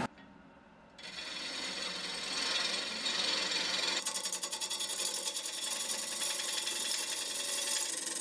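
A turning gouge cutting a wood blank spinning on a Powermatic 4224 lathe. Starting about a second in, it makes a steady scraping, rasping sound. From about four seconds in, a fast, even flutter runs through it.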